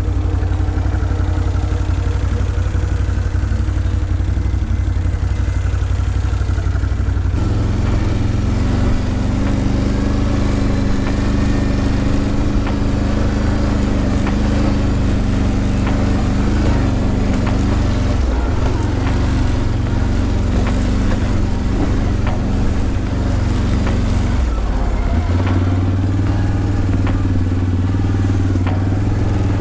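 ATV engine running steadily while riding; its note changes about seven seconds in and dips briefly about twenty-five seconds in.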